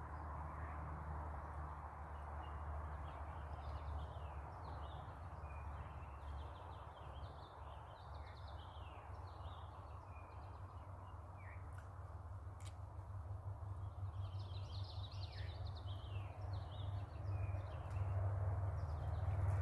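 Songbirds singing in short, quick chirping phrases over a steady rushing background and a low rumble. The birdsong thins out near the end as the low rumble grows stronger.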